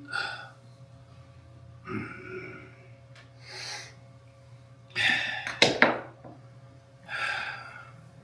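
Short, irregular bursts of rubbing and scraping, with a few sharp clicks about five and a half seconds in, from hands working a lubricated rubber windscreen seal into place on a Jaguar Mk2.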